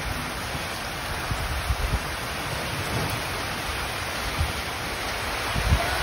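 Heavy typhoon rain falling steadily on corrugated metal roofs and floodwater, a continuous even hiss. A few short low thumps break in now and then, the strongest near the end.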